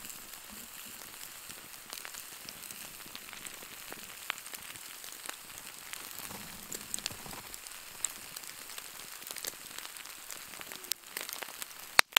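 Thick steaks sizzling on a wire grill over campfire coals, a steady hiss with the fire crackling and popping in scattered small clicks. One sharp, loud snap near the end.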